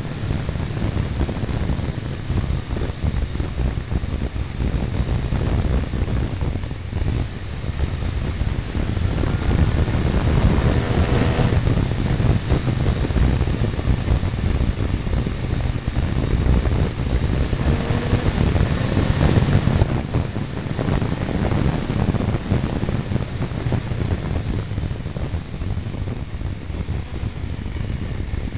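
Wind rushing over a mirror-mounted camera on a moving motorcycle, with the Triumph Tiger 955i's three-cylinder engine running underneath. The noise grows louder through the middle stretch and eases again toward the end.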